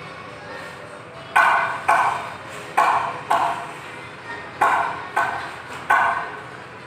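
Hammer striking metal seven times, mostly in pairs about half a second apart, each blow ringing briefly.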